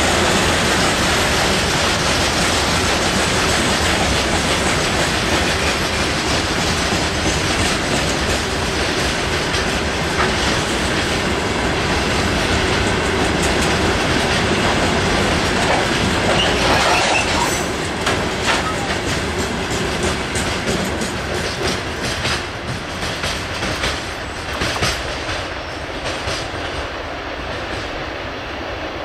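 Freight train wagons rolling past, wheels clattering over the rail joints with some wheel squeal. Near the end the steady rumble eases and the wheel clacks stand out one by one.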